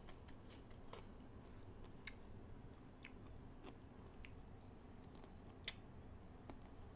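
Faint eating sounds close to the microphone: a few scattered small wet clicks of mouth and fingers as a piece of pickled crab with roe is eaten, over near silence.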